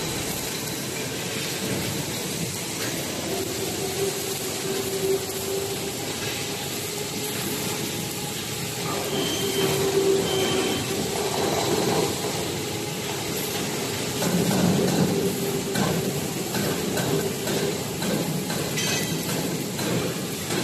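Steady machinery noise with a droning hum that wavers a little and swells briefly twice.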